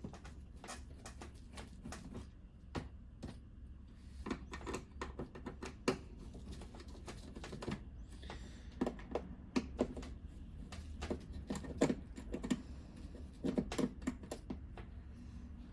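Irregular light clicks and taps of screws being turned out by hand with a manual screwdriver and handled, some coming in quick clusters, over a faint steady low hum.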